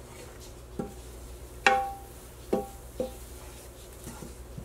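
Wooden spatula knocking against a nonstick frying pan while stirring a lumpy butter-and-flour roux: about five sharp knocks, each with a short metallic ring, the loudest a little under two seconds in.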